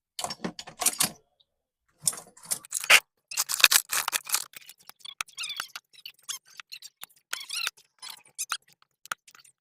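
Metal hand tools clicking and scraping on a circuit board in quick, irregular strokes with a few squeaks, as a burnt TDA7294 amplifier IC is worked off the board.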